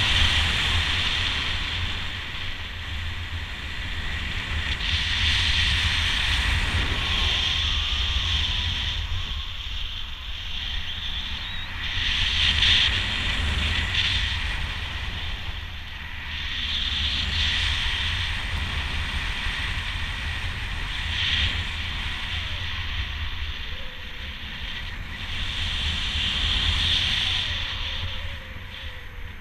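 Wind buffeting the microphone: a steady low rumble with a hiss that swells and eases every few seconds.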